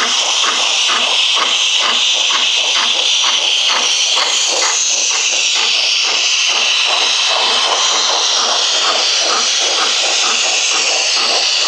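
Gauge 1 model BR 94 steam tank locomotive running with its steam sound: a steady loud hiss over regular chuffs at about three to four a second, which grow quicker and blur together in the second half.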